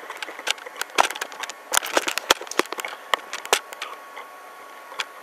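Camera-handling noise while the camera is moved: a run of irregular sharp clicks and knocks, thickest in the middle, over a faint steady high tone.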